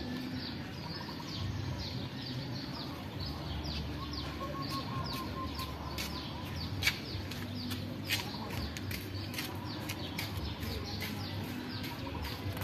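Small birds chirping continuously, many quick downward-sliding chirps overlapping, with a couple of sharp clicks about halfway through.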